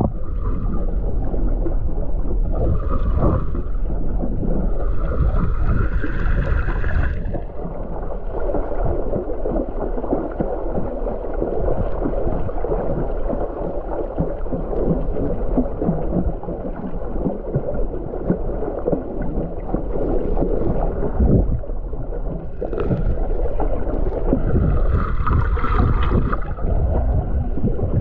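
Muffled underwater sound picked up by a submerged camera: a steady low rush and crackle of water, with higher hissing sounds swelling and fading twice, a few seconds in and again near the end.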